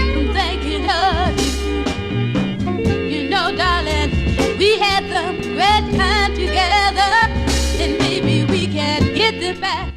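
Soul song playing: a wavering lead vocal over a band with bass and drums keeping a steady beat.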